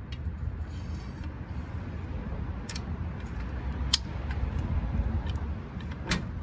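A few sharp metal clicks from handling the old Walker car jack, spaced a second or more apart, over a steady low rumble.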